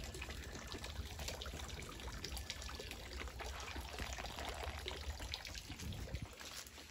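Soft water trickling at a fish pond, with many small pops and splashes on the surface as tilapia take floating feed pellets.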